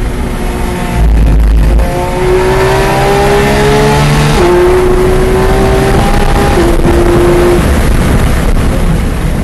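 Porsche 911 GT3 RS (991.2) naturally aspirated 4.0-litre flat-six at full throttle, its pitch climbing as the car accelerates, with two quick PDK upshifts about four and a half and six and a half seconds in. A heavy low rumble lasts about a second, starting a second in.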